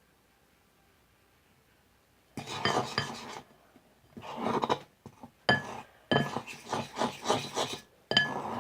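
A fork stirring and scraping clear-glue slime in a bowl, with small clinks against the bowl, in about four short bouts starting about two seconds in. The slime is still being mixed as the contact-solution activator takes effect.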